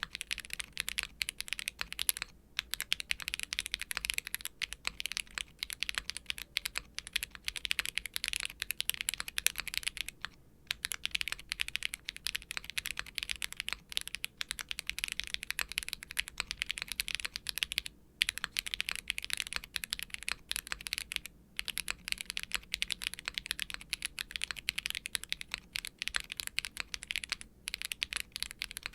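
Continuous fast typing on a custom mechanical keyboard, a gasket-mounted Daring Run Polygon7 with a polypropylene plate, HMX KO1 light tactile switches and GMK double-shot ABS keycaps. The key clacks come densely, broken by a handful of short pauses.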